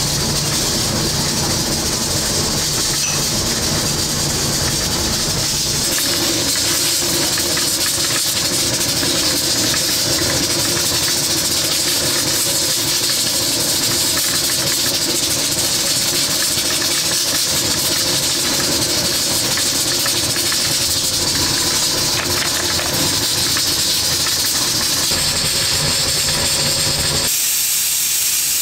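Loud steady hiss of steam from pressure cookers on the stove, with a low hum beneath it. The sound changes abruptly about six seconds in, and again shortly before the end, where the low hum drops away.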